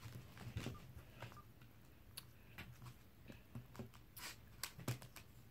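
Faint, scattered light taps and clicks of small objects being handled, over a low steady hum.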